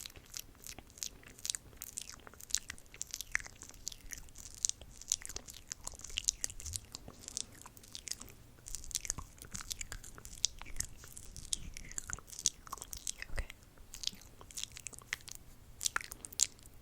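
Close-up ASMR mouth sounds: a steady run of short, irregular wet clicks and smacks, several a second.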